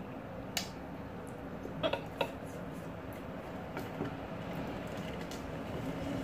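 Eating by hand: a few short mouth smacks and clicks, spaced irregularly, over a steady low hum of room noise.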